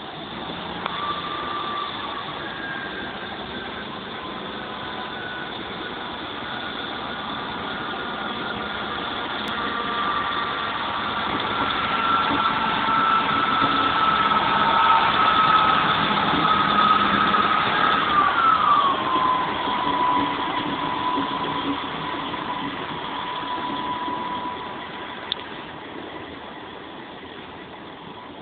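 Class 158 diesel multiple unit under power as it moves past, its underfloor diesel engines running with a whining note. The sound grows louder as the train draws alongside, the whine drops sharply in pitch about 18 seconds in, and it fades as the train pulls away.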